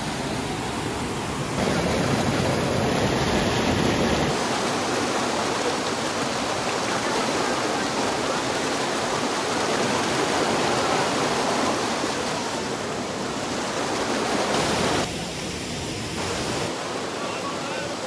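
Steady rush of water from a rocky mountain stream and small waterfall, which jumps in level abruptly a few times.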